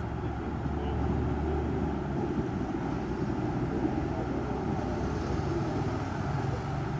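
Steady low rumble of motor vehicle engines, without any sharp knocks or revving.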